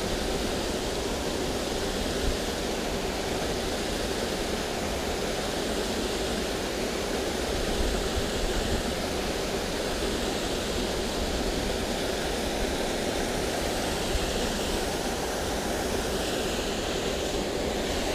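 Steady rushing of flowing creek water, an even noise with a low rumble underneath.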